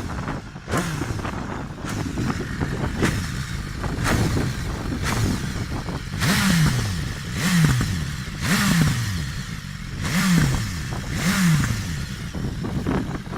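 2017 BMW S1000 superbike's inline-four engine, fitted with an HP Akrapovic exhaust, revved in short throttle blips about once a second. Each rev jumps up and falls back toward idle, and the blips grow stronger about halfway through.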